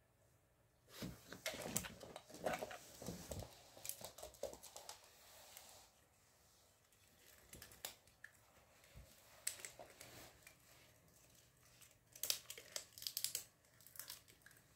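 A young raccoon rummaging with its paws and snout, making irregular bursts of rustling and crinkling with sharp little clicks. The bursts are busiest for a few seconds near the start and again near the end.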